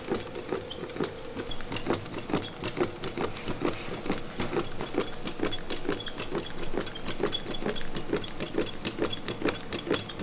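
Homemade candle-heated Stirling engine running on its own, its copper-wire crankshaft and stick-and-cardboard linkage clicking steadily, about three to four clicks a second, as the cardboard flywheel turns.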